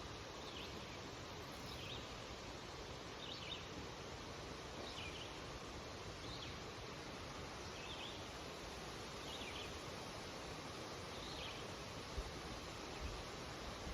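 Wind rustling through birch leaves as a steady hiss, with a bird repeating a short chirp about once every second or so. A couple of low bumps come near the end.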